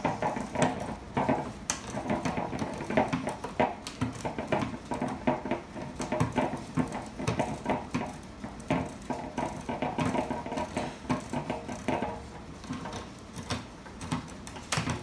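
Irregular small metallic clicks, taps and clinks of a gumball machine lock, its screw and hand tools being handled and worked on.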